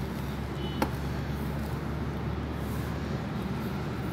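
Steady low background rumble, with one short click just under a second in.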